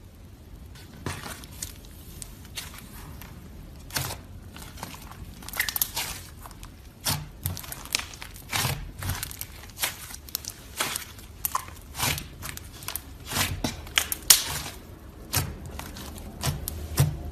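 Slime being squeezed and pressed by hand, giving irregular sticky pops and crackling clicks, some louder than others.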